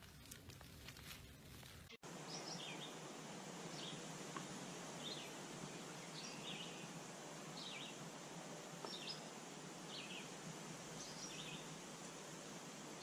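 A small bird chirps over and over, short high calls about once a second, over a steady background hiss. Before that, for about two seconds, there are only faint taps and rustling.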